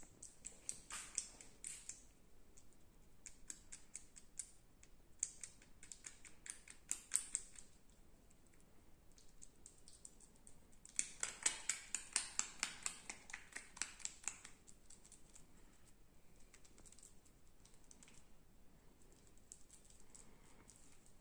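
Fingertip rubbing and scraping cream in a man's navel: faint, irregular scratchy clicks that come thickest in a quick run from about eleven to fourteen seconds in.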